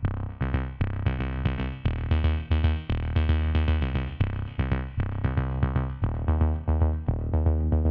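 Background music with a steady beat and held pitched notes.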